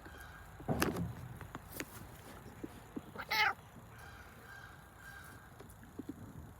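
A domestic cat gives one short meow about three seconds in, with a louder knock or handling bump near the start and a few small clicks.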